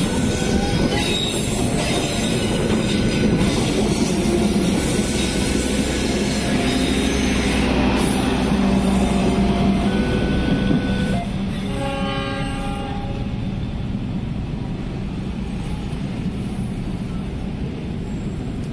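A passenger train passing over a level crossing, its wheels and coaches rumbling and clattering, with some wheel squeal. The rumble drops off sharply about eleven seconds in as the last coach clears. A short pitched tone sounds about a second later.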